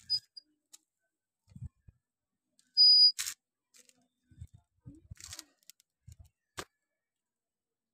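Handheld phone being moved about: scattered soft knocks and rubs on the microphone, with a brief high beep a little before three seconds in, then straight after it a loud, short rustling scrape, the loudest sound.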